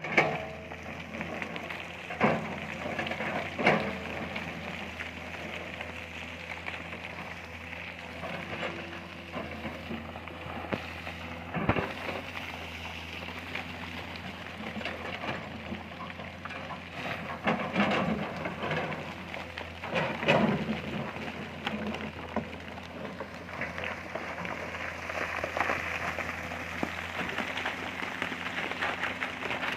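Excavator's diesel engine running steadily under a constant crackling, gritty noise of dirt and rock being worked, with a few sharp knocks along the way.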